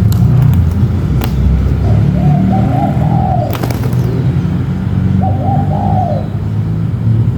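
Spotted dove cooing: two short phrases about three seconds apart. A few sharp clicks fall among them, over a steady low rumble.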